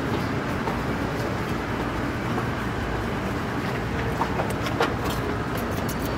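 Steady low mechanical rumble with a few light clicks in the second half.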